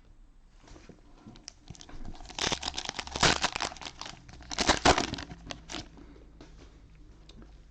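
Plastic wrapper of a trading-card pack crinkling as it is torn open and handled, in two bursts a couple of seconds in, with small clicks around them.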